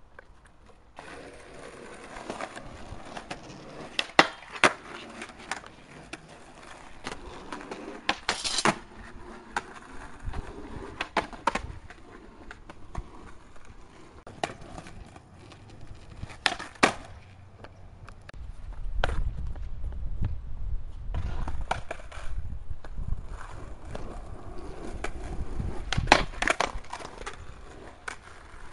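Skateboard wheels rolling on an asphalt driveway, broken by several sharp clacks of the board hitting the pavement, the loudest about four, eight and a half, sixteen and twenty-six seconds in. The rolling rumble grows louder and deeper from about nineteen seconds on.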